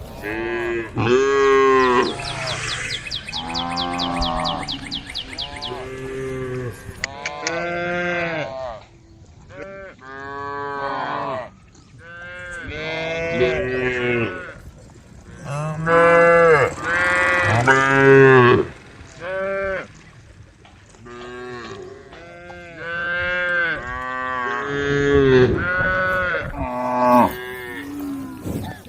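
A herd of cattle mooing, many calls one after another and overlapping, each rising and then falling in pitch.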